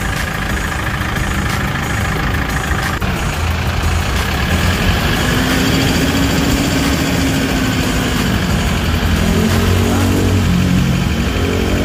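Kia Bongo III 4x4's CRDi turbo-diesel engine idling steadily, heard from under the truck, its pitch swelling slightly once or twice. It runs smoothly, which the seller's vlogger takes for a very fresh engine in good condition.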